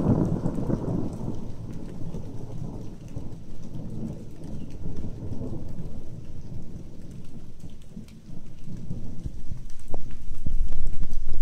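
Thunder rolling, a loud rumble at the start that fades over the first few seconds, with rain falling throughout. A low rumble builds again in the last few seconds.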